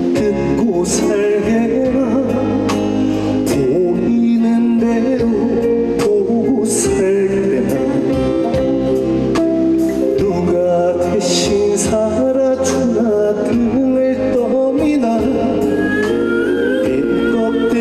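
Live trot song played over a PA system: a male voice singing over a full band backing with a steady drum beat.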